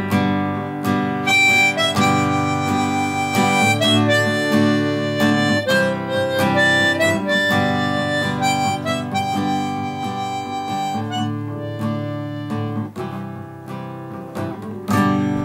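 Harmonica playing a melody over strummed acoustic guitar: the instrumental close of a folk song. A last firm guitar strum comes near the end and rings out.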